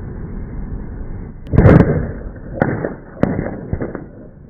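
A small controlled rock blast in drilled granite goes off about a second and a half in with a sudden loud bang over a steady background rumble. Three more sharp cracks follow over the next two seconds.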